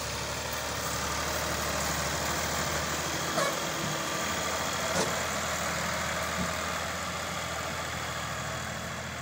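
Massey Ferguson tractor's diesel engine running steadily at idle, with two short knocks about a second and a half apart in the middle.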